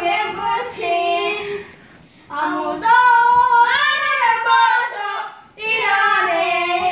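Children singing a Korean Christian children's song in Korean, three sung phrases with short breaks between them.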